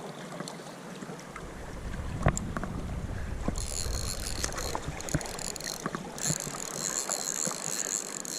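River current rushing around a wading angler, with knocks and a low rumble of rod handling and wind on the microphone while a hooked trout is played. A high, even buzz comes in about three and a half seconds in, breaks off briefly, and runs on again.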